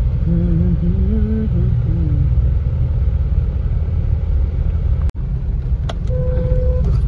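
Steady low rumble of a car driving, with a short, steady beep near the end.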